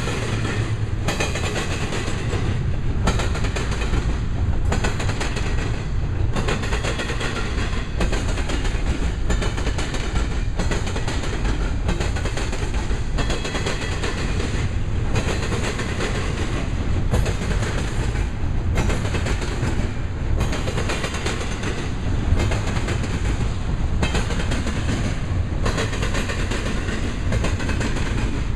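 Double-stack container train's well cars rolling past at speed: a steady low rumble with wheels clattering over the rail joints in groups that repeat about every second and a half.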